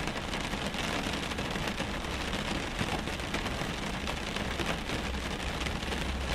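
Rain drumming on a car's roof and windows, heard from inside the car: a dense, steady patter of drops over a low rumble.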